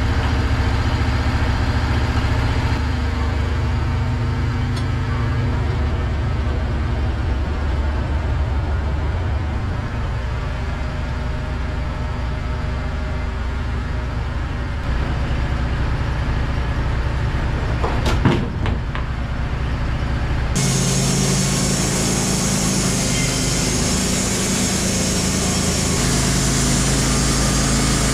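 Wood-Mizer LT15 Wide portable bandsaw mill's engine running steadily, not cutting, with a single sharp knock about two-thirds of the way through.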